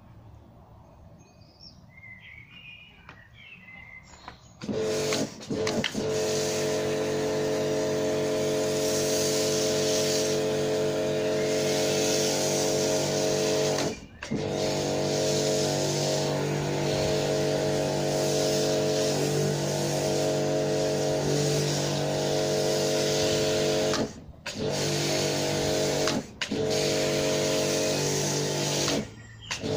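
Electric pressure washer starts about four and a half seconds in and runs steadily, its motor and pump humming under the hiss of a snow foam lance spraying. It cuts out briefly four times as the trigger is let go and squeezed again.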